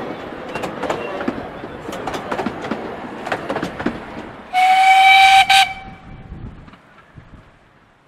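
Miniature-railway passenger carriages clicking and rattling over the rail joints as they roll past, then about halfway through the steam locomotive gives one whistle of about a second, the loudest sound here, which dips slightly in pitch as it dies away.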